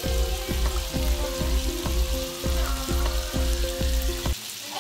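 Plastic spoon stirring a creamy mushroom sauce in a frying pan as it heats and thickens with cornstarch, knocking and scraping against the pan about three times a second over a steady simmering hiss. The stirring stops abruptly about four seconds in.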